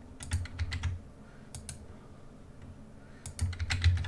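Keystrokes on a computer keyboard in two short bursts, one shortly after the start and one near the end, each key giving a sharp click with a dull thud beneath it.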